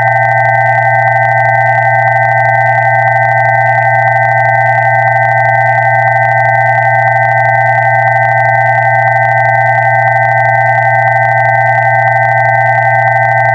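Several electronically generated pure sine tones sounding together without change: a low tone, a cluster of close mid-pitched tones that waver slightly against each other, and two higher tones.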